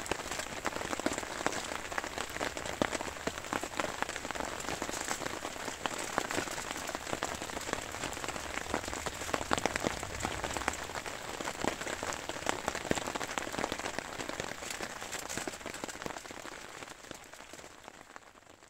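Steady rain falling: a dense hiss of many small drop hits that fades out over the last couple of seconds.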